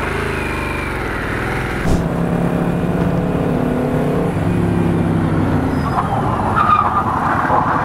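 Old motorcycle engines running as the bikes ride in at speed for a 40-to-zero braking test. A short rushing noise comes near the end.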